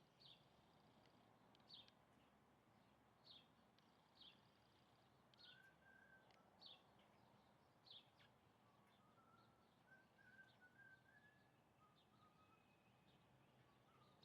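Faint bird calls: short, sharp high chirps repeated about every second or so, with a quieter thin warbling phrase under them through the middle.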